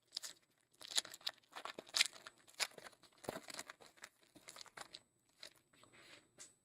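A trading card pack's wrapper being torn open and crinkled, with the cards inside being handled: a run of irregular crackles and rustles.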